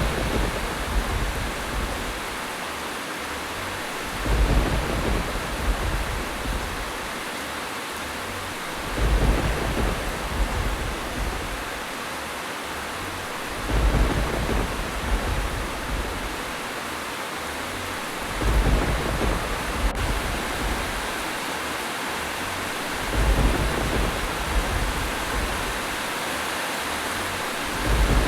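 Steady rain hissing, with a low rumble that swells for a second or two about every four and a half seconds.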